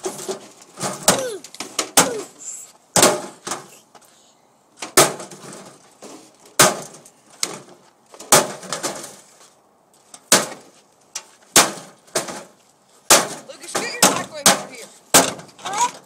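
Repeated sharp strikes on a scrap microwave oven as it is broken apart, about twenty irregular blows, one or two a second, with some breaking and cracking.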